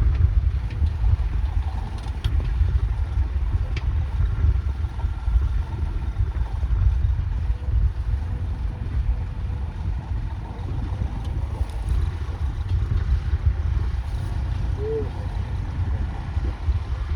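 Wind buffeting the microphone as a heavy, uneven rumble, over a tractor engine running steadily.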